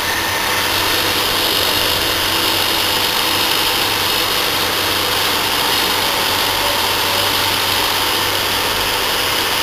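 Braemar half-ton window air conditioner running: a steady low hum from the compressor under the even rush of its fan.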